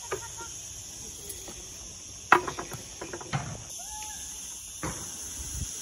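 Cicadas in the pine trees making a steady high-pitched drone, broken by a few sharp knocks, the loudest a little over two seconds in.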